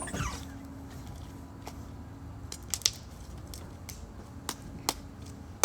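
Scattered light clicks and taps, about a dozen over a few seconds, from handling slime-making supplies such as glue bottles and containers.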